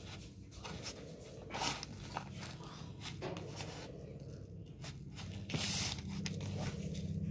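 Cookie dough balls rolled by hand in a bowl of cinnamon and brown sugar: soft, gritty rustling and scraping, with two brief louder scrapes, one about one and a half seconds in and one near the end. A low hum comes up under it near the end.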